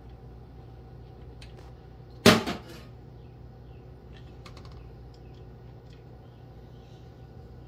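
Hand tools and small faucet parts being handled at a stainless steel kitchen sink during a cartridge replacement: scattered faint clicks and taps, and one loud sharp knock with a quick second knock a little over two seconds in.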